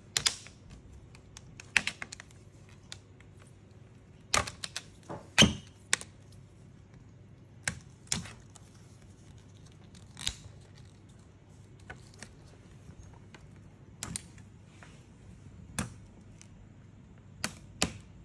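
Snap-in clips of an LCD panel's black frame clicking and snapping loose as the frame is pried off by hand, in irregular sharp clicks, the loudest cluster about four to six seconds in.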